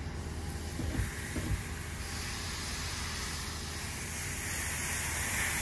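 Washworld Razor touchless car wash spraying the car, heard from inside the car as a hiss over a steady low hum, growing louder from about two seconds in. A couple of soft knocks come about a second in.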